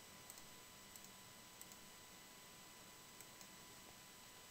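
A few faint clicks of a computer mouse, some in quick pairs, over near-silent background hiss.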